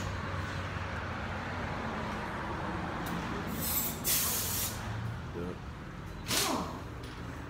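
Muffler-shop background: a steady low hum with two short hisses of air, a longer one about halfway through and a brief one near the end.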